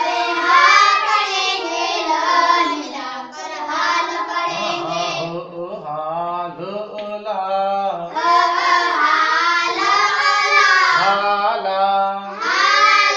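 Children's voices chanting Urdu letter combinations in a sing-song recitation, phrase after phrase, with a brief lull about halfway through.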